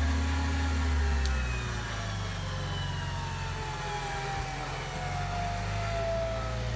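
An off-road vehicle's engine runs steadily with a strong low hum, under a whine that slowly falls in pitch over several seconds.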